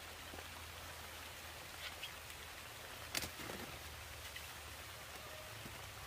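Faint steady hiss over a low hum, with a few soft ticks and one sharp click about three seconds in.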